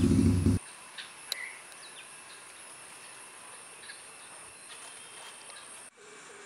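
A loud low rumble cuts off abruptly about half a second in. It gives way to faint outdoor ambience with a steady high-pitched insect drone and a few faint clicks.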